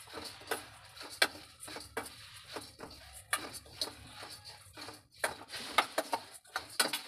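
Metal spoon scraping and clicking against a stainless steel pan while stirring puffed rice that is being dry-roasted, an irregular run of short scrapes and clicks.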